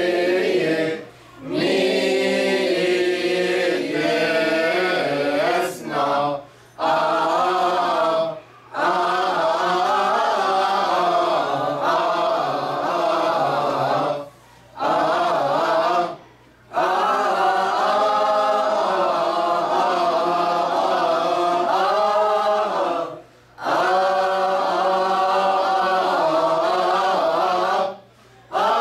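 A mixed group of men and women singing a church hymn together, unaccompanied, in long phrases separated by short pauses for breath.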